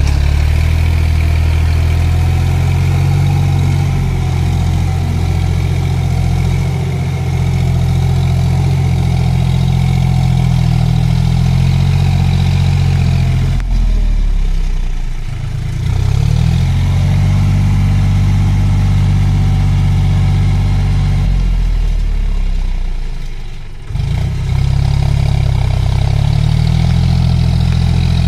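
John Deere tractor's diesel engine running under load as it hauls cage wheels and an implement through a flooded, muddy field. The engine note dips and swings in pitch about halfway through, sags again near the end, then comes straight back.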